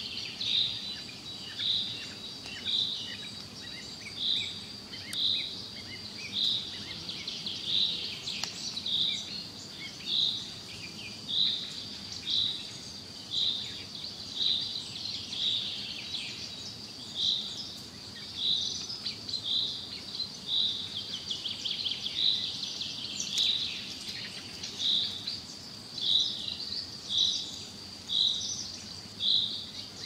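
Nature ambience of birds and insects: a short high call repeated evenly about once a second over a steady high insect drone, with scattered bird chirps.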